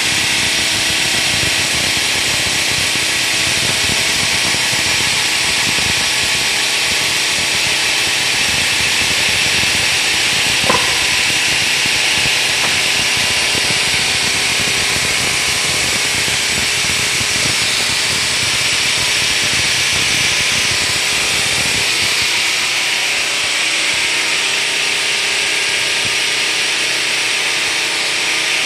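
Automatic curbstone chamfering and grinding machine running, its motor-driven grinding heads working the edge of a granite curb: a loud, steady grinding noise. A single sharp click comes about ten seconds in.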